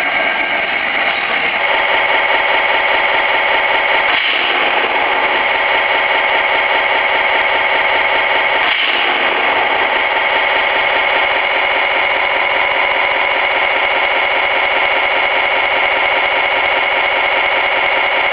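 Electronic sound unit of a 1/16 scale Leopard 1A4 RC tank playing a steady simulated tank engine running through its small speaker, with brief changes in the sound about four and nine seconds in.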